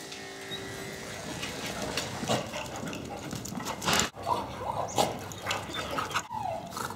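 Dogs playing together, with short yips and growling calls over scuffling and sharp clicks. An electric grooming clipper hums at first and cuts off within the first second.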